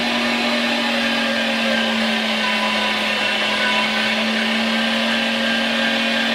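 LEM Mighty Bite #8 electric meat grinder running steadily at its lowest speed, a constant motor hum, while bread is fed through to push the last of the meat out of the grinder.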